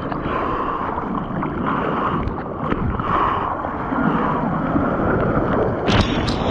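Seawater sloshing and splashing close up as a bodyboarder paddles through the surf. About six seconds in, a wave breaks just overhead and a louder rush of whitewater sets in.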